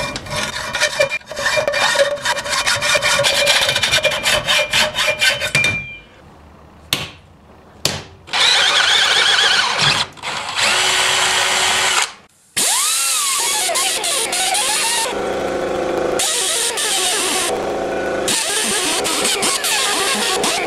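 A hacksaw cutting through a quarter-inch-thick copper bar held in a bench vise, in rhythmic back-and-forth strokes for about six seconds. Then, after a short pause, a cordless drill bores holes through the copper, and a spinning abrasive disc grinds the bar, with the motor briefly rising and falling in pitch.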